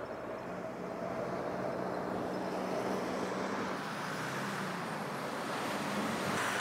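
A road vehicle's engine running with traffic noise, a steady hum that builds slightly over the first second and then holds.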